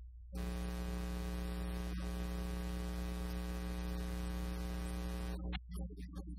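Loud steady electrical buzz, mains hum with a hiss over it, through the church sound system. It switches on abruptly just after the start and turns choppy, cutting in and out, near the end. It is the kind of fault the uploader warns of as an audio issue.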